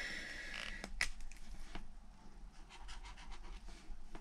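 Cap worked off a Tombow ABT N15 dual brush pen, with a sharp click about a second in, then the pen's brush tip drawn across sketchbook paper in a quick wavy swatch, a run of soft scratchy strokes.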